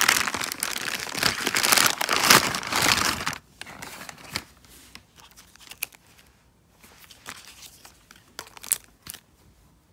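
A shopping bag rustling and crinkling for about three and a half seconds as items are pulled out of it, then much quieter crinkles of cosmetic sample sachets and a few small taps as packaged compacts and boxes are set down.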